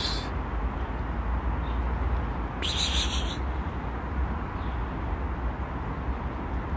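A squirrel calling from a tree trunk: two short, harsh calls about three seconds apart, the first right at the start, over a steady low rumble.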